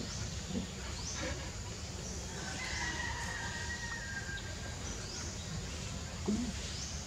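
Outdoor ambience of birds calling: short high chirps recur about once a second over a steady low rumble. A drawn-out call, like a distant rooster crowing, holds for about two seconds near the middle.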